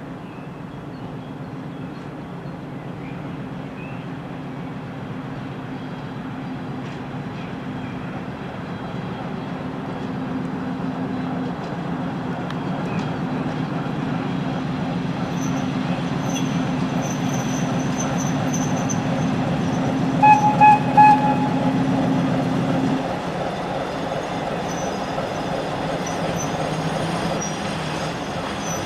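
ChME3 shunting diesel locomotive drawing closer, its six-cylinder diesel engine growing steadily louder, with high wheel squeal setting in partway through. About twenty seconds in, the horn gives three short toots, and soon after the engine note drops back while the wheels go on squealing.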